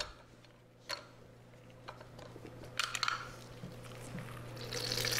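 Lemon half crushed in a hinged hand-held citrus press: a few soft clicks and squeaks as the press closes, then a longer squelching hiss of juice squeezing out near the end. A steady low hum runs underneath.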